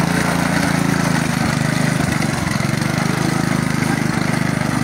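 Small engine of a homemade dragon-shaped ride-on cart running steadily as the cart moves, with a fast, even firing pulse.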